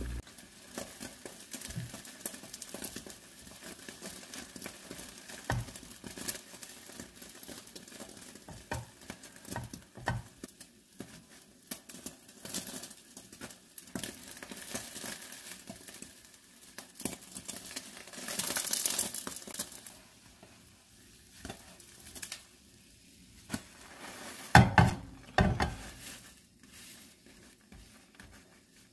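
Egg frying in a nonstick frying pan while slices of white bread are laid onto it, with a light sizzle and scattered handling clicks. There is a short stretch of hiss about two-thirds of the way in, and a cluster of loud knocks from a spatula on the pan near the end.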